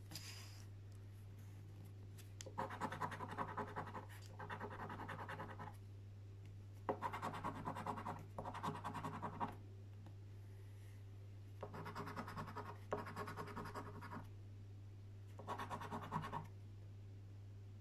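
A coin scratching the coating off a paper scratchcard, in about seven short bouts of a second or so each, with pauses between them. A steady low hum runs underneath.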